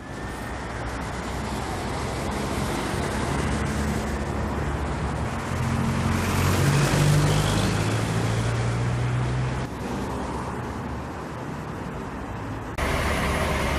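Road traffic on a multi-lane highway: steady engine and tyre noise, loudest as a vehicle passes about halfway through. The sound changes abruptly twice near the end.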